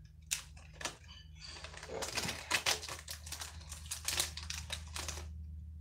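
Foil Yu-Gi-Oh booster pack wrapper being handled and torn open: two sharp clicks in the first second, then a dense run of crinkling and crackling for about three seconds.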